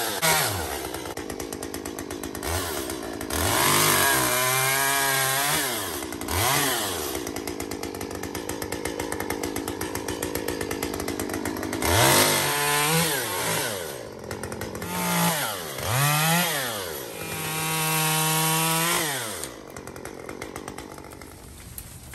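Small chainsaw cutting snow-laden tree branches, revved up four times with the pitch rising and falling, and dropping back to a lower steady run between cuts. It falls away about two and a half seconds before the end.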